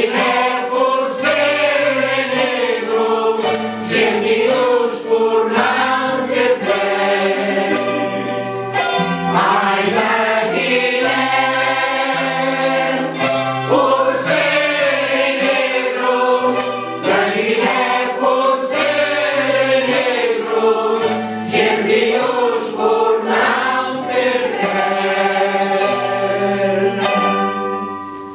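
A group of older voices singing together to an acoustic guitar and small plucked string instruments strummed in a steady rhythm; the song comes to an end just before the close.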